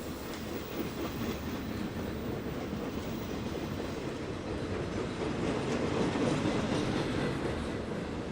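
Freight train rolling past, a steady rumble of cars on the rails with light wheel clatter.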